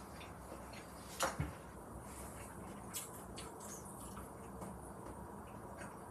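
Quiet room tone with a few soft clicks and a double knock a little over a second in.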